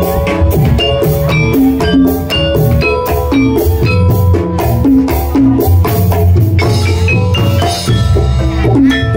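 Live gamelan music for jathilan: metal keyed percussion struck on a fast, steady beat of about four strokes a second, over drums.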